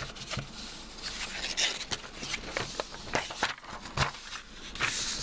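Handling noise: scattered clicks, knocks and rustling as the handheld camera is moved and a paper circuit diagram is handled, with a louder rustle near the end.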